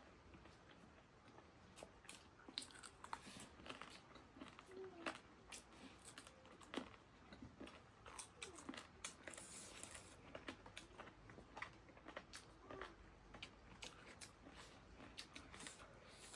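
Faint chewing and crunching of food close to the microphone: many small, irregular crackles and clicks.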